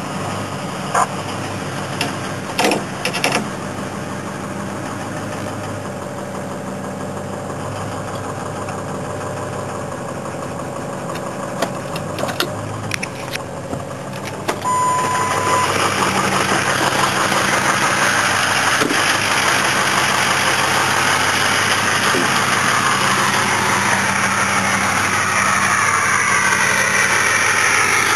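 2003 Ford 6.0 PowerStroke V8 turbo-diesel running at cold high idle, first muffled inside the cab with a few clicks. About halfway a one-second chime sounds and the engine becomes much louder and hissier, heard by the tailpipe, with a turbo whistle rising and falling near the end.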